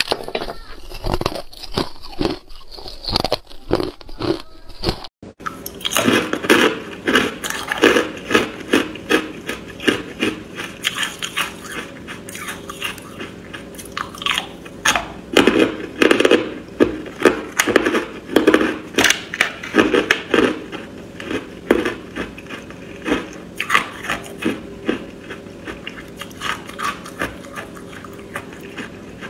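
Ice being bitten and chewed close to the microphone: repeated crisp crunches, first on small ice cubes, then, after a short break about five seconds in, on pink pieces of carbonated ice.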